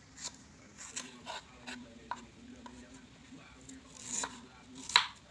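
Knife slicing a boiled bamboo shoot thin against a wooden board: irregular short, sharp cuts and taps, the loudest about five seconds in.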